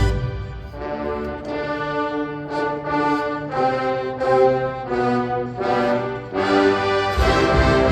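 Marching band brass section playing a string of held chords that change every half second or so. The full band comes back in louder near the end.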